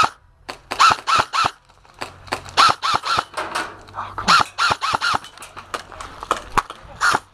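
Airsoft rifle firing single shots in quick runs of three or four, about three a second, with short pauses between the runs; each shot is a sharp crack with a short twangy ring.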